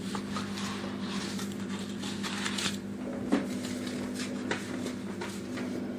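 Soft, irregular rustling and handling noises over a steady low hum, as while something is fetched and laid out at a workbench.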